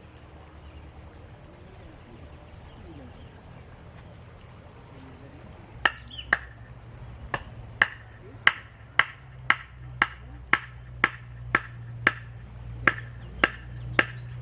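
A regular series of sharp knocks, each with a short ringing tone, about two a second, starting about six seconds in, over a steady low hum.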